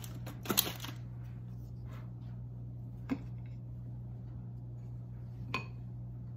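A few small clinks of a metal spoon and spatula against a glass bowl of frosting: a cluster in the first second, then single clinks near the middle and near the end, over a steady low hum.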